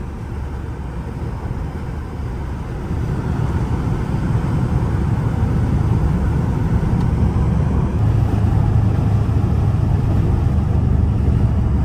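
Dodge Hellcat's supercharged 6.2-litre HEMI V8, still on its stock exhaust, running under way with a steady low drone and road noise, growing louder about three seconds in.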